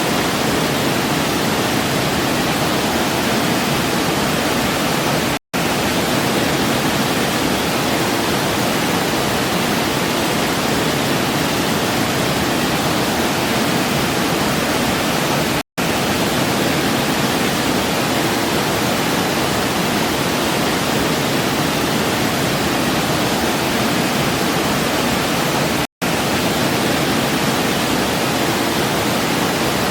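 Waterfall: a steady, even rush of falling water, broken by three momentary dropouts to silence about ten seconds apart.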